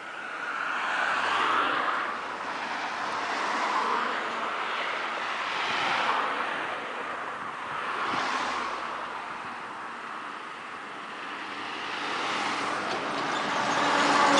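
Road traffic: several vehicles passing one after another, their tyre and engine noise swelling and fading about every two seconds.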